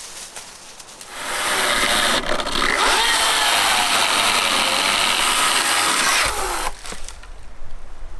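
A power tool starts about a second in, runs steadily for about five seconds and then stops.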